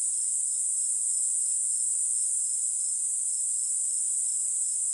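Steady, high-pitched insect chorus, crickets or similar, with a fainter chirp repeating about four times a second.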